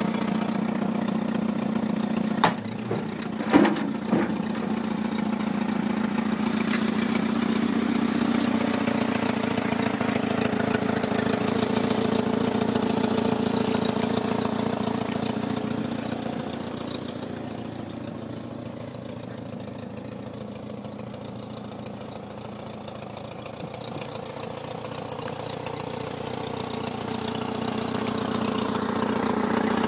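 A small dumper truck's Mini engine, a BMC A-series four-cylinder, idling steadily. Two sharp knocks come about two and a half and three and a half seconds in. The engine grows fainter around the middle and louder again near the end.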